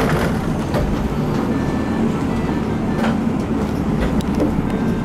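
Steady hum and rumble inside a Kintetsu limited express passenger car, with a few light knocks.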